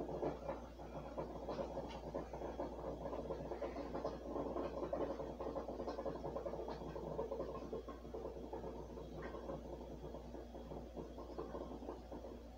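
Faint, continuous crackling and rustling of people handling and eating flaky apple turnovers at a table, over a steady low hum.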